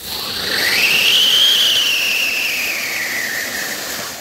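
Damo Fireworks 'Angry Birds' siren cracker going off: a loud siren-like whistle that climbs quickly, then slowly falls in pitch over the hiss of the spark fountain. It cuts off suddenly after about four seconds.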